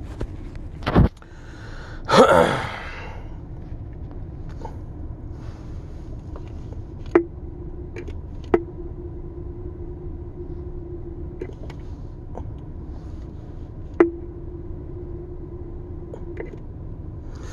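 A sharp knock about a second in, then one loud sneeze. After that comes a low steady hum with a few scattered clicks, and a faint steady tone through much of the second half.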